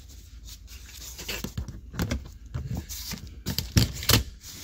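Handling noises from a truck bucket seat: fabric rustling and a series of knocks and clicks as the seat back is reclined and the covered headrest is brought down onto its metal posts. The two loudest knocks come near the end.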